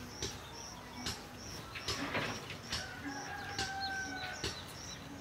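A bird repeating a short high chirp about twice a second. A few sharp knocks and a longer steady whistle-like tone come a little past the middle.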